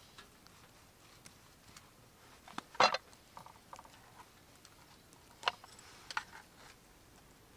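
A few short, sharp clicks and knocks over a faint steady hiss. The loudest comes about three seconds in, and two smaller ones follow a couple of seconds later.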